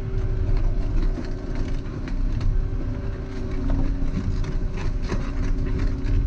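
Volvo EC140EL excavator's diesel engine running steadily with a low rumble, with irregular knocks and clatters from the machine at work, thickest in the second half.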